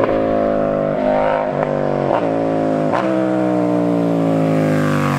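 KTM Duke 790/890 parallel-twin engine running through an Austin Racing RS22 de-cat exhaust as the bike rides along the lane, its pitch drifting slowly down. The note is broken by several sharp cracks about a second apart.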